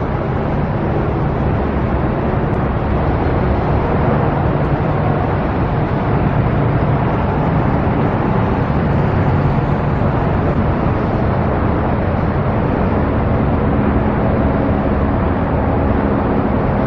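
Steady road traffic noise: vehicles running close by, with a low engine hum throughout.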